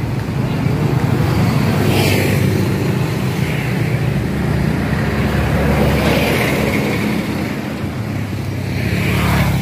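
Motor vehicle engine running steadily, a low hum with road noise that swells briefly three times.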